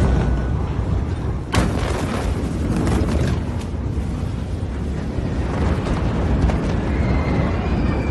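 Low, loud rumble of a massive explosion's aftermath, with a single sharp bang about a second and a half in.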